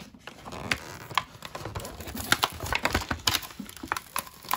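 Clear plastic blister tray crinkling and crackling in irregular sharp bursts as it is pried out of a tight-fitting cardboard box.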